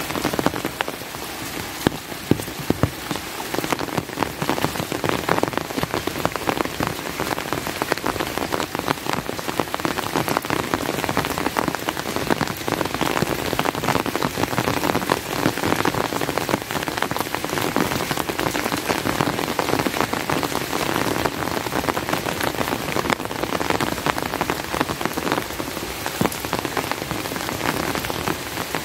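Steady heavy rain, with a dense patter of close drops.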